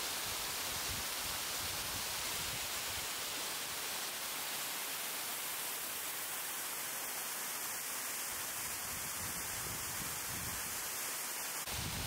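Waterfall: falling water making a steady, even rushing hiss.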